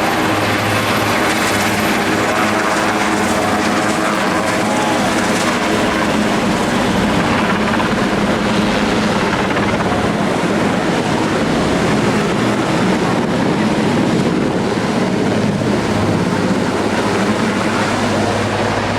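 Aircraft flying over a naval display: a loud, steady engine drone with a low hum.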